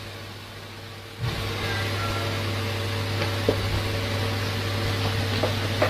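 A steady low machine hum with a few faint clicks; it steps up in loudness about a second in.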